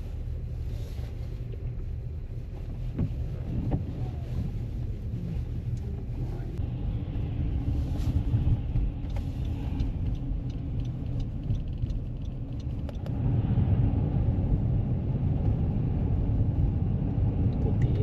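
A car's engine and tyre rumble heard from inside the cabin while driving over snowy and slushy streets. The rumble steps up and grows louder about thirteen seconds in.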